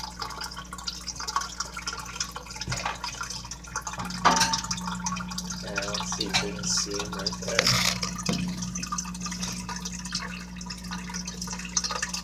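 Water dripping and trickling in a frog aquarium, with scattered small clicks over a steady low hum.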